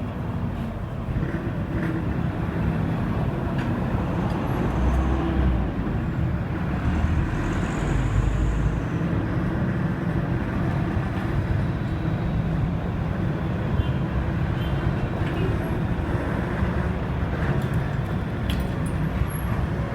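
Steady rumble of road traffic, with a heavier low rumble about five seconds in and again from about seven to nine seconds.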